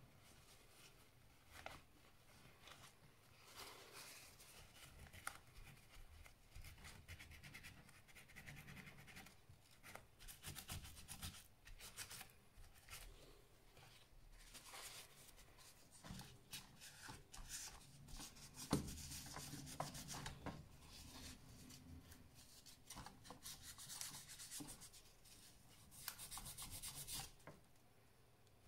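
Faint, irregular rubbing and scratching with light clicks from hands working on the parts of an opened laptop. The rubbing is densest near the end.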